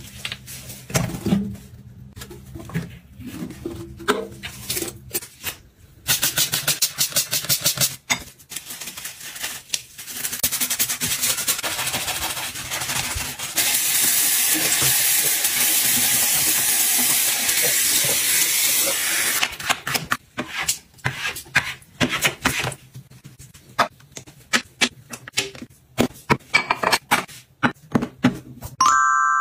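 Tap water running into a bathroom sink basin, a steady rush for about six seconds in the middle. Before and after it come scattered clicks and knocks of bottles and toiletries being handled on the counter.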